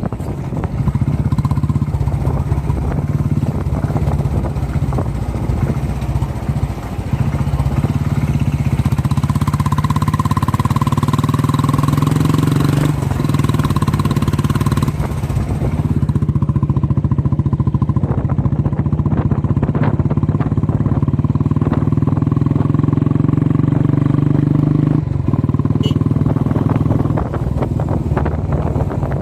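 Motorcycle engine running at a steady road speed, its note dipping briefly a few times and picking up again, with wind and road noise.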